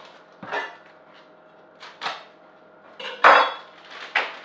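Four brief rustles and knocks from a block of cheddar cheese being handled and unwrapped from its packaging over a cutting board. The loudest, with a dull thump in it, comes about three seconds in.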